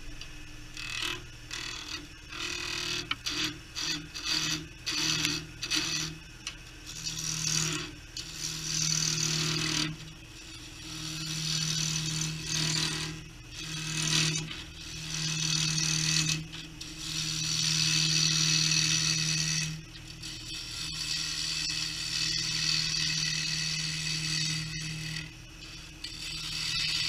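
Wood lathe running with a steady hum while a hand-held turning tool cuts a small spinning piece of wood, the hissing, scraping cut coming and going with each pass. There are short repeated cuts at first, then longer passes of a few seconds each.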